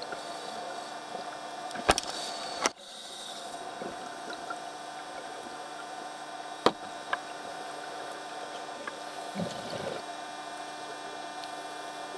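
Steady hum with several fixed tones, picked up through an underwater camcorder housing, broken by a few sharp clicks and knocks. The loudest knocks come about two and three seconds in, with another a little past the middle.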